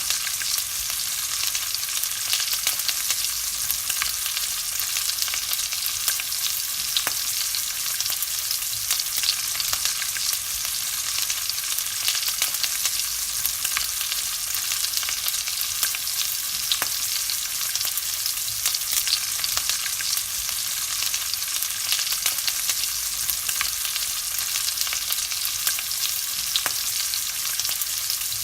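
Bacon frying in hot fat: a steady sizzle with many small crackles and pops scattered through it.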